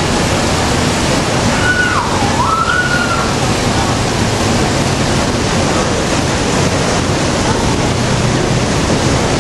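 Dense artificial rain from the Rain Room installation pouring onto a grated floor: a steady, heavy hiss of falling water. A brief voice slides down and back up in pitch about two seconds in.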